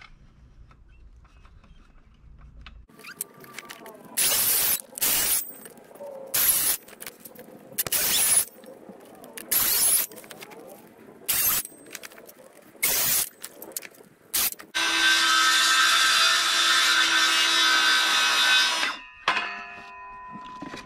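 DeWalt cordless circular saw cutting through a 4-inch timber fence post with its blade set flat. After a few quiet seconds it runs in a string of short bursts, then in one continuous cut of about four seconds, and its whine fades out near the end.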